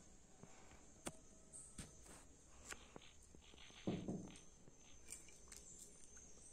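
Near silence: room tone with a few faint clicks and a soft thump about four seconds in.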